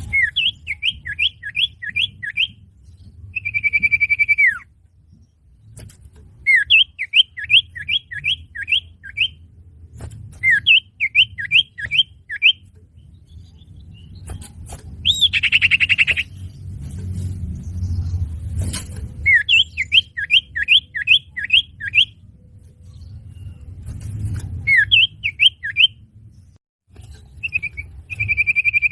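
Common iora singing: repeated phrases of six or seven quick sweeping notes, broken by long held whistles that end in a falling slide, one about three and a half seconds in and one near the end. A low rumble of background noise runs underneath.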